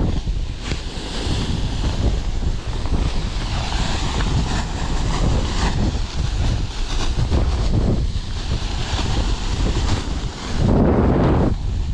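Airflow rushing and buffeting over the microphone of a paraglider sinking in a deep stall, steady but gusty, with a louder gust near the end.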